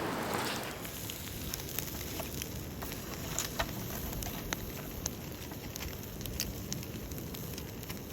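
Wood campfire burning, with a steady hiss and irregular sharp crackles and pops. The hiss is louder for the first second, then settles.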